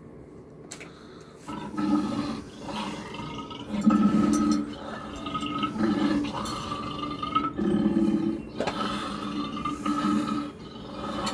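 Lion roaring: a series of deep, drawn-out calls about two seconds apart.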